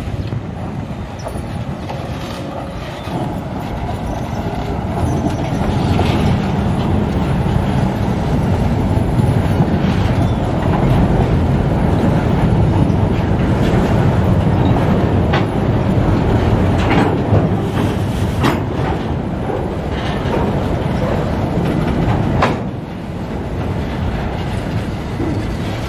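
Container freight train's wagons rolling past close by: a steady rumble of steel wheels on rail that grows louder about five seconds in, with sharp clacks from the wheels now and then.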